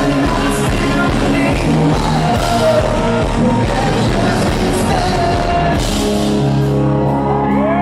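Rock band playing live, with drums, guitars and singing. About six seconds in the drums drop out, leaving sustained chords, and near the end a note slides up into a long held tone.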